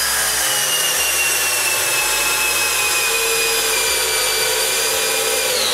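Total TDLI2002E 20 V cordless drill-driver in first gear driving a 6 × 120 mm screw into a wooden beam. The motor and gearbox give a steady whine whose pitch sinks slowly as the screw goes deeper and the load grows. It stops about five and a half seconds in.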